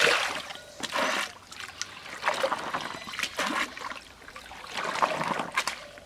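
Water splashing and running off as a plastic colander full of cut vegetable stems is dipped and swished in pond water, in a series of separate splashes about a second apart.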